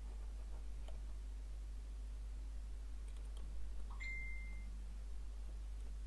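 Faint light clicks of metal tweezers working on a flashlight's LED board, over a steady low electrical hum, with one short high beep about four seconds in.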